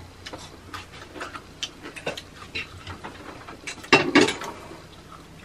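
Fingers mixing rice and scraping a metal plate during hand-eating, a string of small clicks and scrapes, with a louder cluster of sounds about four seconds in.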